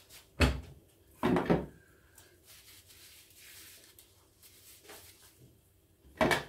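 Air stapler parts being handled and set down on a wooden workbench: a knock about half a second in, two more close together a second later, and another near the end.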